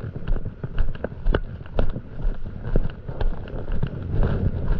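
Footsteps on wet, firm beach sand, walking at about two steps a second, with wind rumbling on the microphone.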